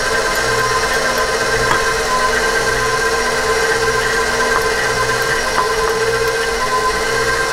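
KitchenAid stand mixer motor running steadily, its beater whipping egg white batter in a steel bowl, with a steady whine over a slow, regular low throb. A few light clicks sound over it.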